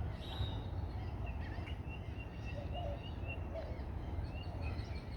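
Birds chirping: a run of short, faint, high-pitched notes, over a steady low outdoor rumble.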